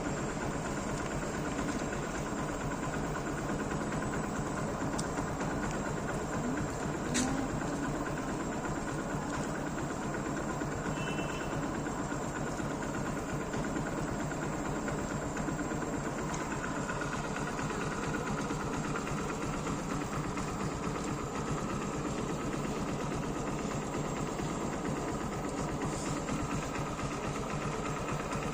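Hero Splendor motorcycle's single-cylinder four-stroke engine running steadily at an even speed with a fast, regular beat and no revving, with one brief click about seven seconds in.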